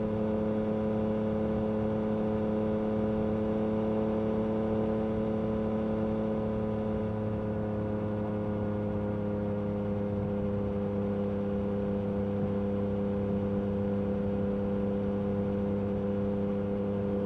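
Yamaha MT-09 SP's three-cylinder engine through an Akrapovic carbon exhaust, running at a steady mid-range speed on the move. Its note sags slowly lower through the second half.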